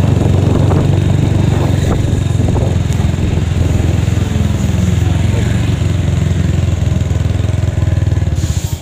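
Honda Megapro single-cylinder four-stroke engine, swapped into a Yamaha Mio scooter, running steadily under way at a constant speed; the sound drops away abruptly near the end.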